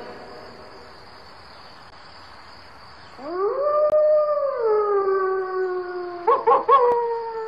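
A dog howls once, beginning about three seconds in: the call rises, holds, then slides slowly lower, wavering a few times near the end.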